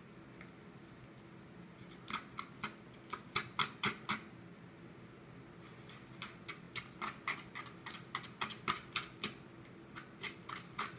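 Slime of school glue and Tide being mixed: a string of short, wet clicks and pops, several a second in irregular clusters, starting about two seconds in.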